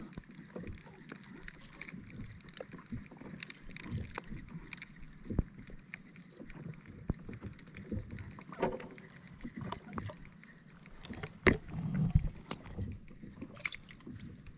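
Scattered knocks and clicks against a small fishing boat, with water lapping around the hull.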